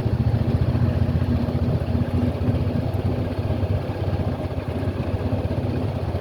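Honda Pioneer 4-seater UTV's engine running steadily as it drives along, heard from on board.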